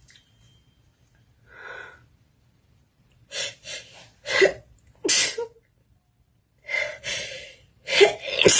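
A woman sneezing, induced by sniffing pepper. After a quiet start and one soft breath, gasping inhales build into sneezes in the second half, the loudest about five seconds in and another near the end.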